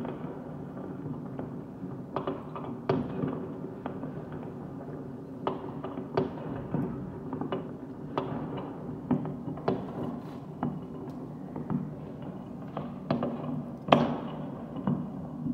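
New Year's fireworks and firecrackers going off across the city: a steady run of irregular bangs and cracks at varying loudness over a constant low background noise, with the sharpest bang about 14 seconds in.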